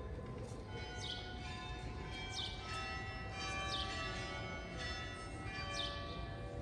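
Church bells pealing: several bells struck in turn every second or two, their tones ringing on and overlapping.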